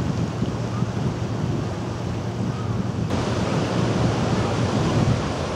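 Sea waves and wind buffeting the microphone, with a faint low hum from a passing motorboat's engine in the first few seconds. About three seconds in, the sound changes abruptly to surf washing around rocks.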